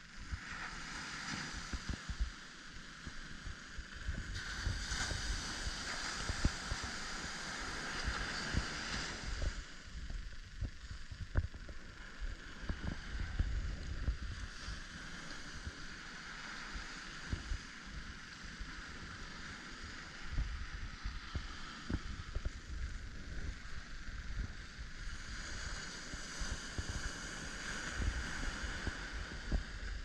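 Ocean surf breaking and washing up a sandy beach, swelling louder about four seconds in and again near the end, with wind buffeting the microphone in low rumbling gusts.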